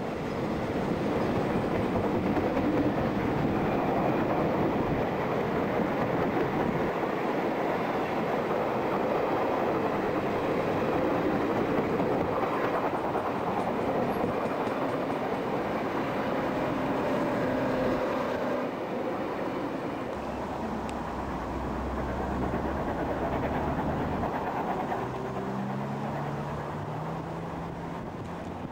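Steam train of vintage carriages passing close and running away down the line, the rolling noise loud and dense at first and easing off after about eighteen seconds. A lower, steadier sound takes over for the last several seconds.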